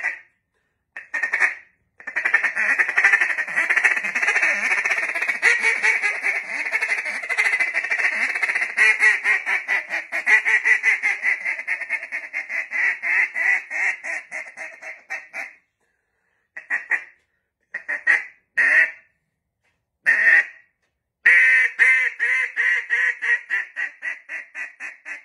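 Handheld duck call blown to imitate a live duck's quacking. A couple of single quacks come first, then a long run of fast chattering quacks lasting about thirteen seconds, then a few spaced single quacks, and finally a run of quacks that grows quieter.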